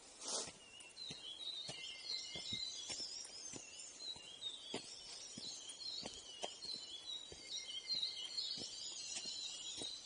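Birds twittering in a mountain forest, with irregular footsteps crunching on a dirt trail and a brief rustle just at the start.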